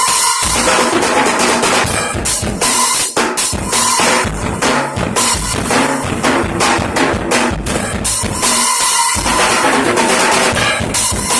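Drum kit played freestyle: a dense run of bass drum, snare and rimshot hits over a continuous cymbal wash.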